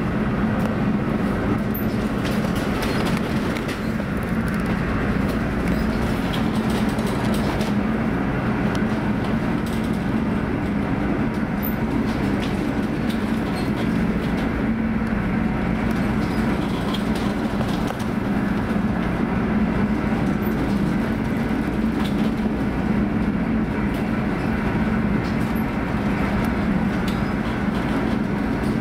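Steady low drone of a ship's engines and machinery heard from inside the vessel, under the rush of storm wind and heavy sea, with a few faint ticks and rattles.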